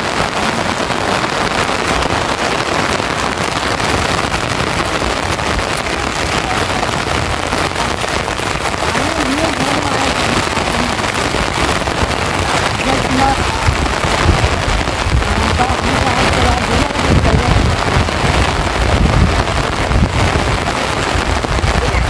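Heavy rain falling steadily, a dense, even hiss. From about two-thirds of the way through, low gusts of strong wind buffet the microphone.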